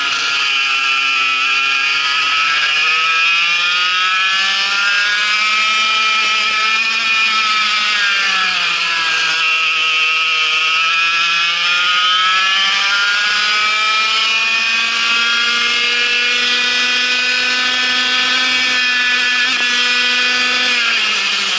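Vortex MiniRok 60 cc single-cylinder two-stroke kart engine at racing revs. Its pitch dips near the start and again about eight to nine seconds in as the kart slows for corners. Between the dips it climbs back up, then rises for a long stretch on the straight before dropping again near the end.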